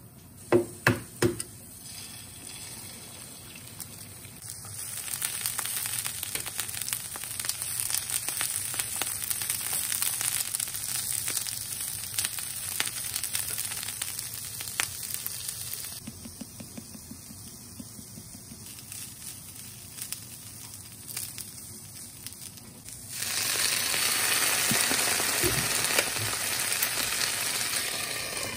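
Food sizzling in a frying pan: mushrooms, a fried egg and rapeseed greens frying in oil. Three sharp knocks come about a second in, and near the end the sizzle jumps to a louder, steady hiss as a little sake goes into the pan and the lid is put on to steam-fry.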